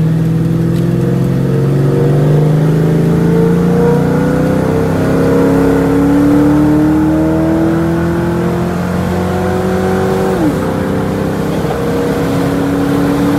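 Car engine and road noise heard from inside the cabin while driving. The engine pitch climbs slowly as the car gathers speed, drops abruptly about ten seconds in, then holds steady.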